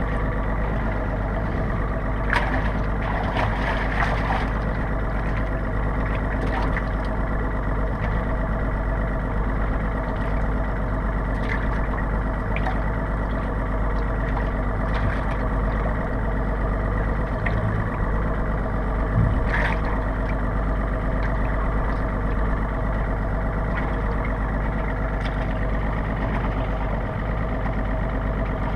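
Boat engine idling steadily, with a few short knocks and clicks over it.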